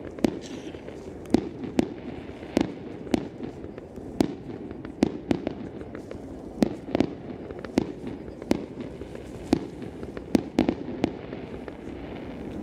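Aerial firework shells bursting in a fireworks display: an irregular run of sharp bangs, about two a second, over a steady background rumble.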